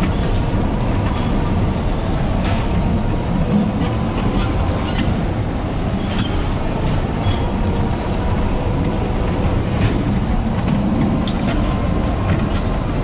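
Electric bumper car driving across the ride's metal floor: a steady rumble from its wheels and drive, with a faint steady hum and scattered sharp clicks.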